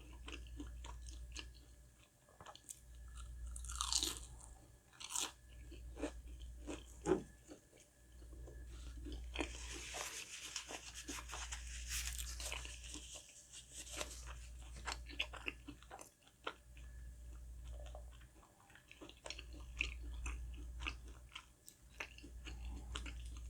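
Close-miked chewing with crisp crunchy bites of a fried breaded chicken croquette, many small sharp crackles, denser for a few seconds in the middle.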